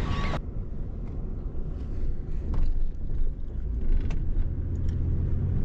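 Truck on the move: a steady low engine and road rumble, with a few short sharp knocks or rattles.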